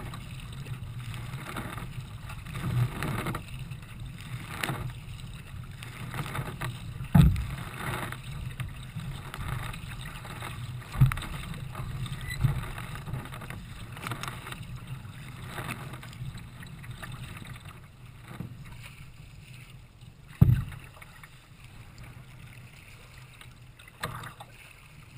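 Water splashing and rushing past the hull of a Nelo racing kayak under paddle strokes, heard from a camera on its bow, in a rough pulse of about one splash a second. A few loud thumps stand out, and the splashing eases off in the last several seconds.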